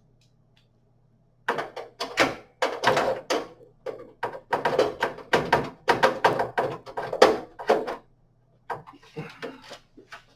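A screwdriver tightening the graphics card's bracket screws into the case: a quick, uneven run of clicks and knocks, then a softer patch of clicking near the end, over a faint steady low hum.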